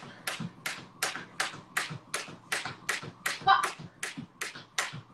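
Jump rope slapping a wooden floor in a fast, even rhythm of about four to five sharp slaps a second, with soft thuds underneath. A short vocal exhale or grunt cuts in about three and a half seconds in.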